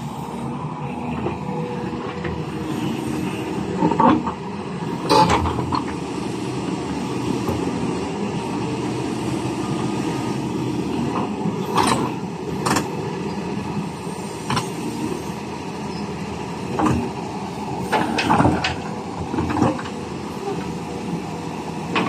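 A crawler excavator's diesel engine runs steadily under hydraulic load. Its steel track clanks sharply several times as the derailed track is worked back onto the idler and rollers.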